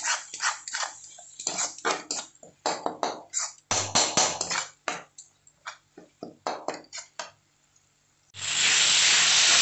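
A perforated steel ladle scraping and knocking against an iron kadhai as thick onion-tomato masala is stirred and fried on low heat, a quick run of scrapes that stops briefly. Near the end a loud, steady sizzle of the masala frying starts suddenly.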